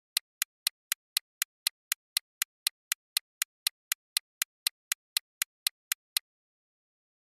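Countdown timer sound effect: sharp, even ticks at about four a second, around two dozen in all, stopping suddenly about six seconds in.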